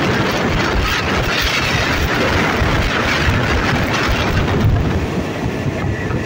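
Loud, steady running noise of a train under way, heard from the carriage coupled right behind an Alsthom diesel-electric locomotive: a continuous low rumble with a rushing hiss over it.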